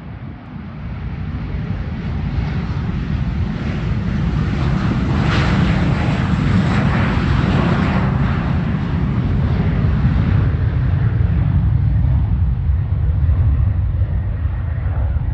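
Airbus A321 jet airliner's engines at takeoff power, growing into a loud rumble. A hiss peaks about halfway through as the plane passes, and the deep rumble carries on afterwards.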